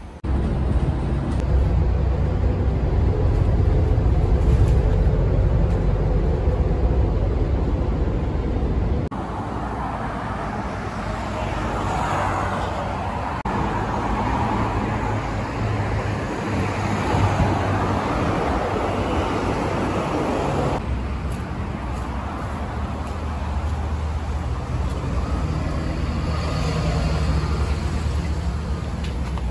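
Road traffic noise from cars and buses passing on a busy multi-lane road. It is a steady rumble and hiss that changes character abruptly about nine seconds in and again around twenty seconds, where separate clips are cut together.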